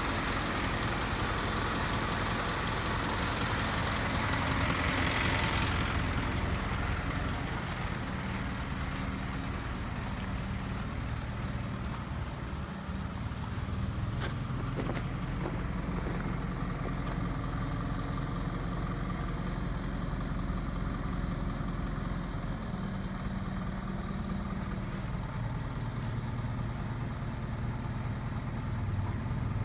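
Tow truck engine idling steadily. A louder hiss sits over it for the first six seconds, and there is a single sharp click around the middle.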